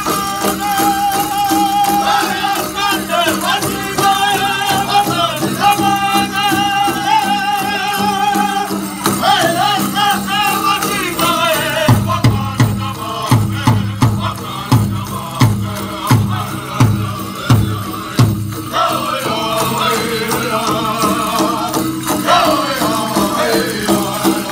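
Powwow drum group singing a dance song in high-pitched voices over a steady drumbeat. Around the middle the singing drops away and a run of loud, evenly spaced drumbeats takes over for several seconds before the voices come back.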